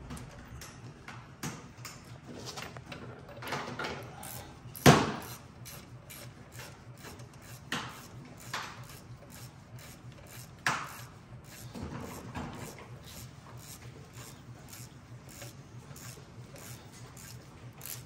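Scattered metal clanks, knocks and scraping from gloved hands and tools working at a pickup's front brake caliper and steering knuckle, the loudest a sharp knock about five seconds in.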